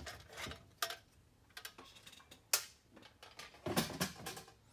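Scattered light clicks and knocks as the bottom cover of a Kodak carousel slide projector is lifted off and set aside, with a sharp click about two and a half seconds in and a cluster of knocks near the end.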